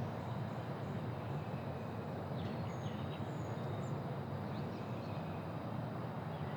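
Quiet residential neighbourhood ambience: a steady low rumble of distant traffic, with small birds chirping a few times around the middle.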